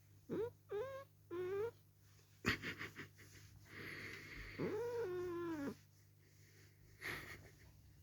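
Domestic cat protesting at being held and kissed: three short rising meows in quick succession, then after a couple of seconds one longer drawn-out yowl that rises and falls, with brief noisy sounds in between.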